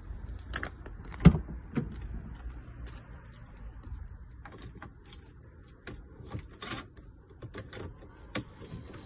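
A Mercedes-Benz car door being opened, with a sharp latch click about a second in, followed by scattered light clicks and rustling.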